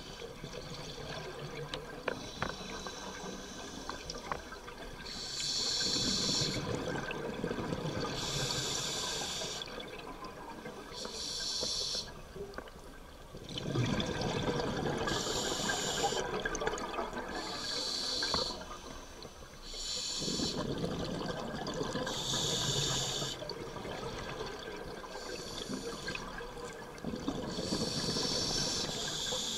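Scuba diver breathing through a regulator underwater: a hiss on each breath in, then a long rush of bubbles on each breath out, repeating every few seconds.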